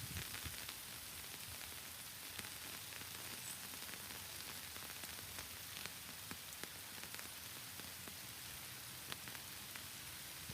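Steady rain falling in forest, a continuous hiss with scattered individual drops ticking sharply close by.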